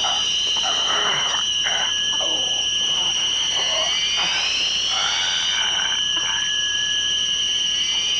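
Science-fiction electronic sound effect: a steady high-pitched tone, with a cluster of tones that rise and level off about every four seconds. Under it, men groan and cry out in pain.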